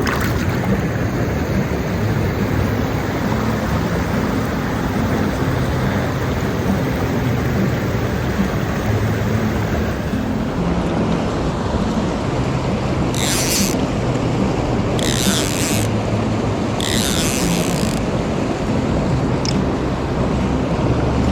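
Steady rushing water noise. About two-thirds of the way through come three short, high, rasping sounds a second or two apart.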